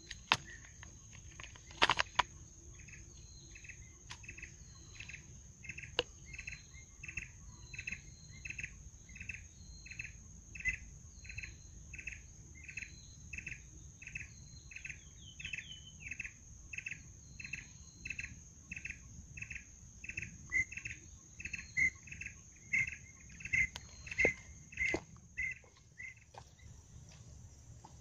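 A bird calling the same short note over and over, about three calls every two seconds, louder toward the end before stopping, over a steady high-pitched insect drone.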